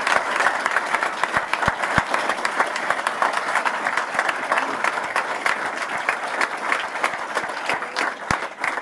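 Audience applauding: a steady dense patter of many hands clapping, easing slightly near the end.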